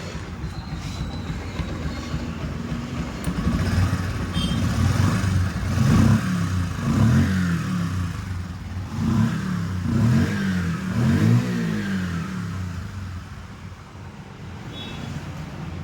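Bajaj Discover 100 motorcycle's single-cylinder four-stroke engine running and being revved several times, the revs rising and falling, then settling back down near the end. It runs on a newly fitted crankshaft assembly that cured the crank's play.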